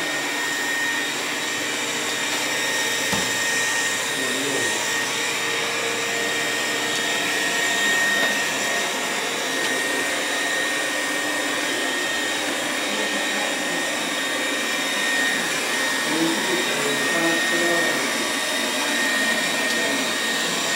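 Cecotec Conga 4690 robot vacuum running as it moves across the floor: a steady suction-fan hiss with a constant high whine.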